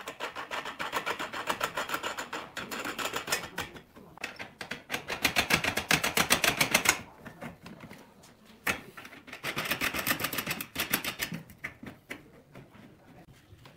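A ratchet wrench clicking rapidly in three runs, tightening the bolts of a steel clamping frame that presses a glued-up wooden tabletop.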